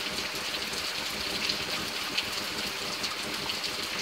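Heavy rain coming down steadily, with many sharp splashes of single drops striking close by.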